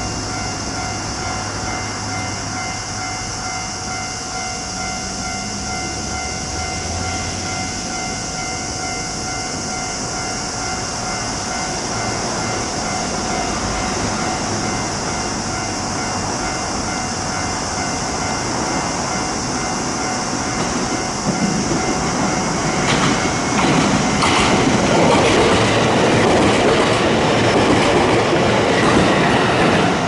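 Railway level-crossing alarm ringing steadily as an electric train pulls away from a station and approaches. The train's running and wheel-on-rail noise grows from about two-thirds of the way in and is loudest near the end as it reaches the crossing.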